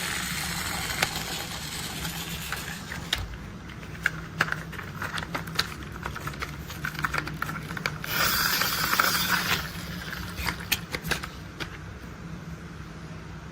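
Plastic toy construction vehicles being handled: scattered small clicks and clacks, with a short rushing burst about eight seconds in, over a steady low hum.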